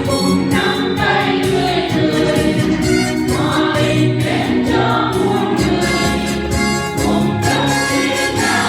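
Church choir singing a Vietnamese Christmas hymn with instrumental accompaniment and a steady beat.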